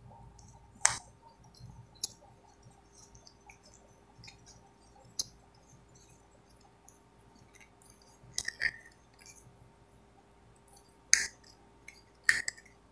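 Small plastic tripod mount being screwed by hand onto a tripod's mounting screw: a handful of short, sharp plastic clicks and taps at irregular intervals, with quiet gaps between them and a faint steady hum underneath.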